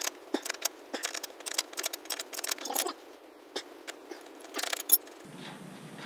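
Metal hand tools clicking and rattling on a motorcycle's rear axle as the loosened 34 mm axle nut is worked off with a trail-kit wrench, followed by a few separate clinks as tools are set down on concrete, the sharpest about five seconds in.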